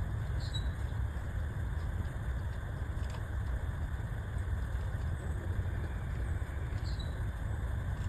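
A steady low rumble, with a few faint, brief bird chirps about half a second in and again near the end.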